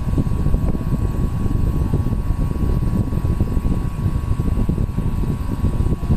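Condura 1 HP window-type air conditioner running while it is being charged with freon: a steady rumbling rush of air from its fan with a steady high hum over it.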